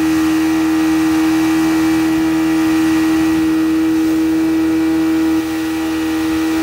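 50-horsepower Mercury outboard motor running at speed, a steady, unchanging whine over the rush of the wake and wind. The level drops slightly about five seconds in.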